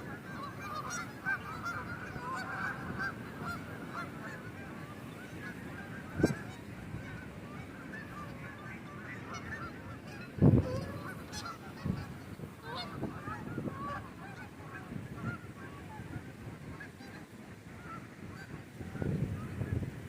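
A flock of geese honking continually, many short calls overlapping. A few low bumps hit the microphone, the loudest about ten seconds in.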